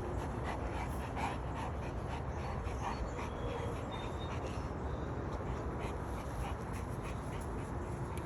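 A dog panting, with a few short, faint whimpers in the first half.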